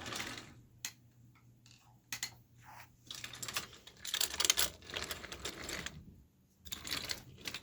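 Wooden toy trains and track clattering: bursts of rapid wooden clicks and rattles as the train cars are pushed along and knocked together, the longest burst about three to five seconds in and a shorter one near the end.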